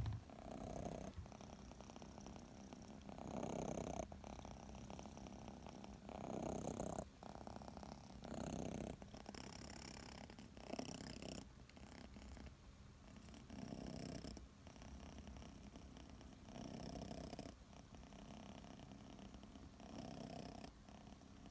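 Sleeping Scottish Fold kitten purring softly, the purr swelling and fading with each slow breath every two to three seconds.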